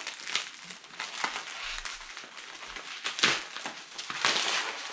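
Packaging crinkling and rustling as it is handled and opened, with louder crinkling swells about three and four seconds in.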